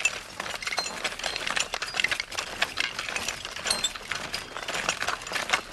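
Fast, irregular mechanical clattering and ticking like a sewing machine: the sound effect of a puppet-film contraption, a trouser-darning machine rebuilt into a path-hoeing machine, running.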